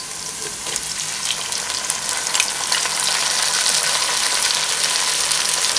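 Sliced onions and green chillies frying in hot oil in a pan: a steady sizzle with scattered crackles that grows a little louder as chopped tomatoes go in.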